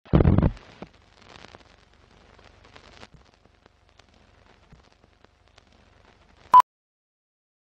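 Animated film-countdown leader sound effects: a loud low thump at the start, then faint film crackle and scattered pops, and one short, high, pure beep about six and a half seconds in, the leader's sync beep.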